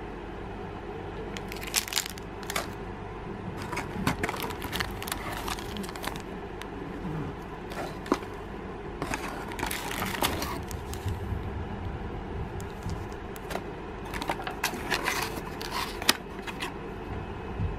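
Clear plastic packets crinkling and a small cardboard box being opened and handled, in several short crackly spells over a steady low hum.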